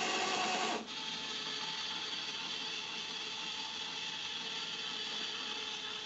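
Claw machine's small geared drive motors running with a mechanical whine that cuts off abruptly under a second in, followed by a fainter steady mechanical whirring.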